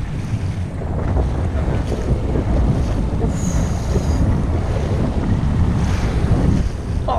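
Wind buffeting the microphone, a steady low rumble, over the wash of choppy open sea.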